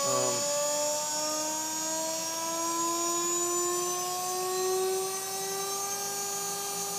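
Chinese VFD-driven CNC router spindle spinning up on a slow ramp with no tool or load: a steady whine that rises slowly in pitch and levels off about five seconds in, at full speed.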